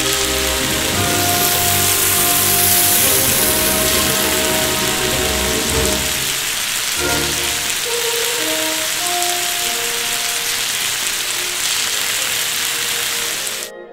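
Webfoot octopus and pork belly in red chili sauce sizzling in a hot pan: a steady hiss that cuts off suddenly near the end, over background music.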